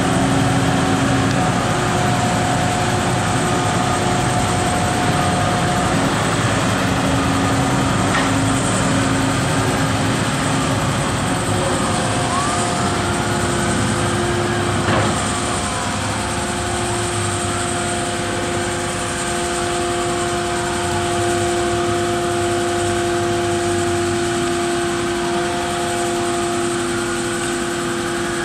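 Mobile crane's engine running steadily as it holds and lowers a suspended roof section. From about halfway through, a higher whine rises and falls slowly several times over the engine.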